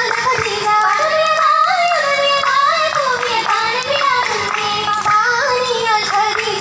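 An oppana song is being sung: a single high voice carries a melody whose pitch bends and wavers throughout, over music.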